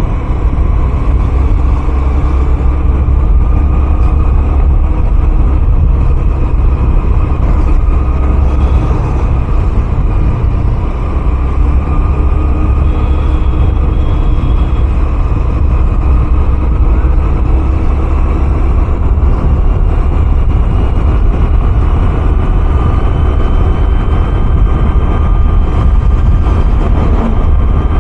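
Honda Dio 110cc single-cylinder four-stroke scooter engine running steadily while riding along, under a heavy, constant wind rumble on the microphone. Two short high beeps sound about 13 seconds in.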